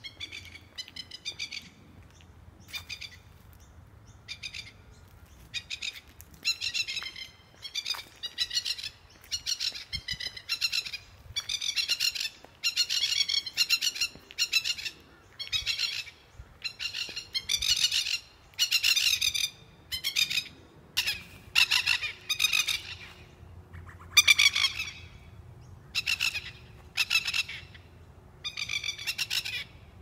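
Masked lapwings giving repeated alarm calls in short bursts, about one a second, louder from about six seconds in: birds defending their nesting territory against a person walking by.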